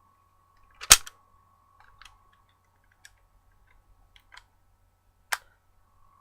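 Plastic Power Rangers SPD Morpher toy being handled and its parts pressed: a sharp click about a second in, the loudest sound, another sharp click near the end, and a few lighter clicks between. A faint steady high tone runs underneath, dropping out for a moment late on.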